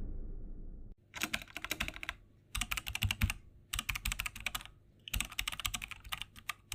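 Computer keyboard typing sound effect: four quick bursts of rapid key clicks with short pauses between them. It follows the fading tail of a low boom in the first second.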